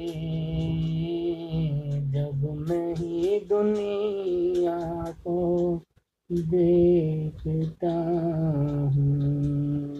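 A man singing a naat solo, drawing out long, wavering notes with short breaks for breath, the longest about six seconds in.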